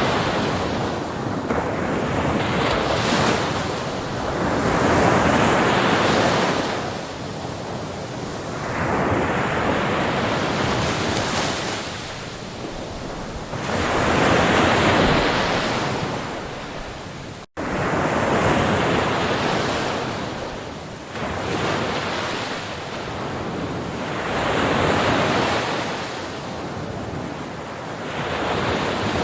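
Ocean waves breaking on shore, the surf swelling and falling away every few seconds, with one momentary cut to silence about two-thirds of the way through.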